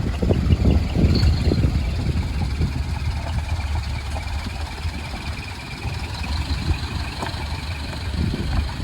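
Large truck's diesel engine running with a low rumble, easing off in the middle and growing louder again near the end.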